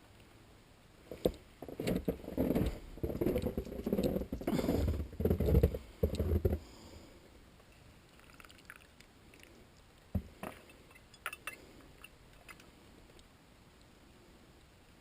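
Handling noise as melted fat is spooned or poured into teacups for bird feed: a few seconds of scraping, sloshing and knocking against the containers, then a few scattered clicks.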